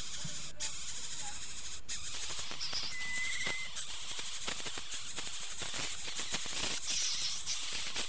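Coucal nestlings hissing, with a fast rattle of clicks that thickens about two seconds in. A short wavering whistle comes about three seconds in.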